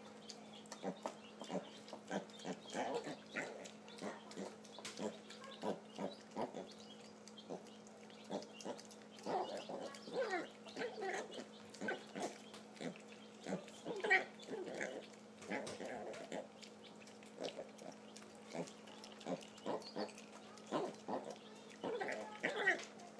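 Mini piglets grunting in short, irregular bursts while crunching pellet feed from a bowl.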